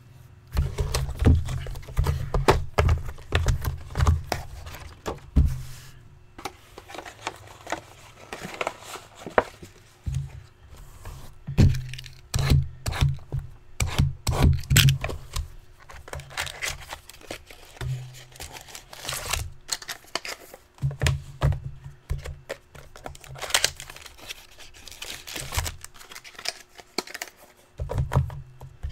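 Packaging being handled and torn open: wrappers crinkling and tearing, with many irregular knocks and thunks.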